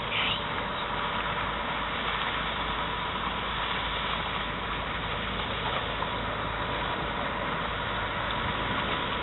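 A river ship's engine running steadily, a constant mechanical drone with a faint hum.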